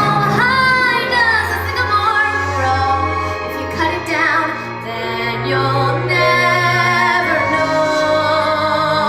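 A young girl singing solo over musical accompaniment, holding long notes with vibrato.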